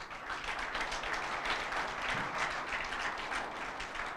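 Audience applauding: many hands clapping at a steady level, easing off near the end.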